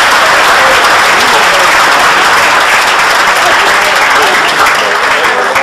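Audience applauding steadily after a choir song ends.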